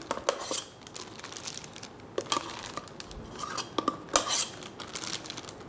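A metal spoon scraping and knocking against the inside of a stainless steel pot as it scoops out thick chicken mousse. The scrapes come irregularly, with the loudest knock about four seconds in.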